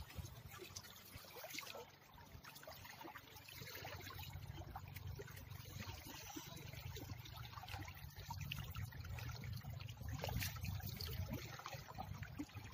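Water trickling and splashing, with many small irregular splashes and drips.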